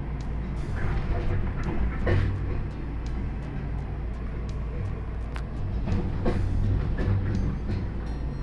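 Seno Skyrail suspended cable-hauled car running, heard from inside the cabin: a steady low rumble and hum with scattered clicks and knocks, swelling louder twice.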